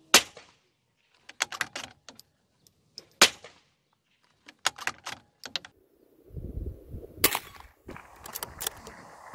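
A .22 LR rimfire rifle fired three times, about three seconds apart, each a sharp crack with a short tail, with quick clusters of small metallic clicks between the shots. A low rumble and hiss come in over the last few seconds.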